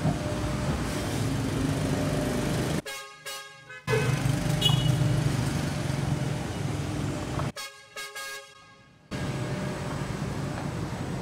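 Road traffic: a steady rumble of passing cars and motorcycles. The rumble drops away twice, for about a second each time, while a vehicle horn sounds.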